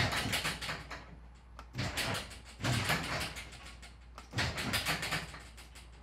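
Chain-drive garage door opener working the sectional door, with uneven bursts of rattling and clunking from the door and its track as it hesitates and fails to close. The hesitation is put down to the door binding for want of proper lubrication.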